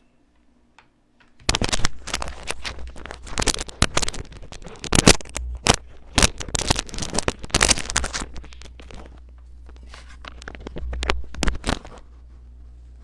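Irregular scraping, rustling and crackling clicks, loud and closely packed, over a low steady hum; they start about a second and a half in and die away near the end.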